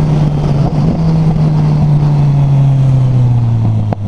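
Motorcycle engine and exhaust running on the road, with wind noise on the microphone. The engine note falls slowly, dips briefly near the end and then carries on lower.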